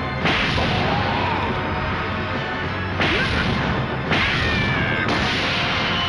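Animated fight sound effects: a sudden heavy hit just after the start, then three more about a second apart from three seconds in, each followed by a rushing whoosh, with a character's shouts and background music.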